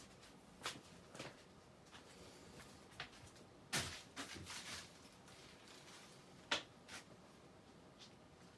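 Casablanca Panama ceiling fan running in reverse on medium speed, a faint steady background with scattered clicks and knocks, the loudest about four seconds in and again around six and a half seconds in.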